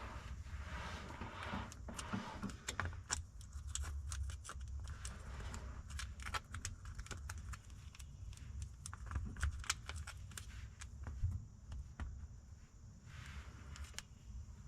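A fluid pump being worked to fill a car's rear differential with gear oil: irregular light clicks and small knocks over a steady low rumble.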